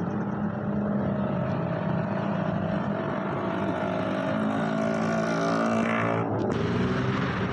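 Motor vehicle engine running steadily close by, its pitch rising gradually as it speeds up, with a short break about six seconds in before it carries on.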